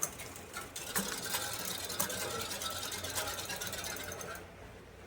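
Bicycle chain and rear gears clattering with rapid clicking as the drivetrain is turned by hand and shifted toward the lowest gears. The rear derailleur hanger is bent, which gives shifting trouble in first and second gear. The clicking stops about four seconds in.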